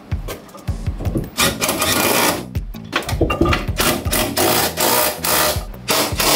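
Background music with a steady low bass line, over a cordless power driver run in several bursts of a second or two, driving in the fasteners that hold the steering box.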